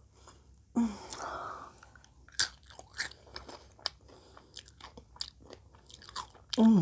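A person chewing a mouthful of nachos, with crunching and many short wet mouth clicks. A short hummed voice sound falls in pitch near the end.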